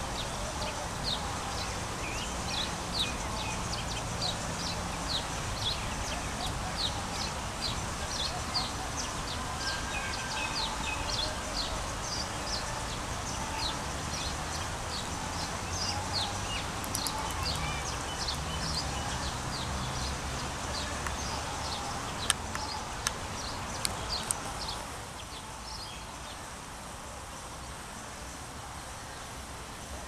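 Birds chirping: a quick series of short, high chirps, about two or three a second, over a low background hum. The chirping stops about 25 seconds in, with a few sharp clicks just before.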